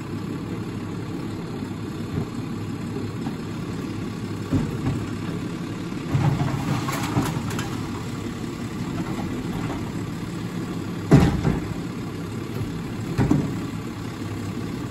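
Peterbilt automated side-loader garbage truck's engine running steadily at the curb while its arm works the bins, with a few knocks and a loud bang about eleven seconds in.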